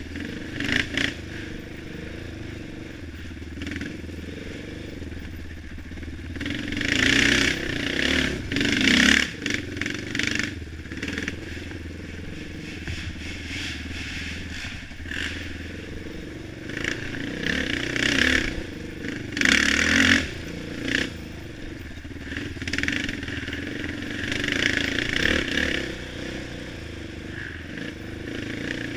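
ATV engine running under load on a rough woods trail, rising in several revving surges between steadier stretches.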